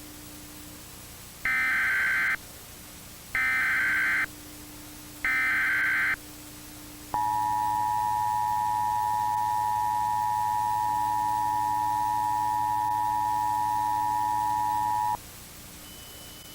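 Emergency Alert System SAME header, three short bursts of warbling digital data tones about a second apart, followed by the two-tone EAS attention signal held steady for about eight seconds, over a low hiss. Together they announce the start of an emergency alert, here a flash flood warning.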